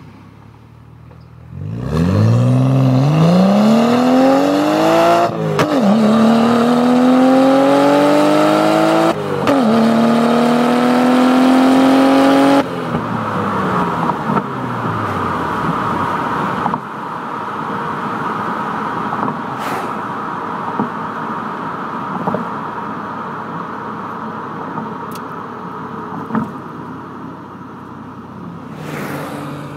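BMW E92 335i's turbocharged N55 straight-six, with a BMS downpipe, JB4 stage II tune and AE quad exhaust, at full throttle through the gears. The engine note climbs in pitch, drops sharply at two upshifts about 5 and 9 seconds in, and cuts off as the throttle lifts about 12 seconds in. After that a steady rushing noise slowly falls away.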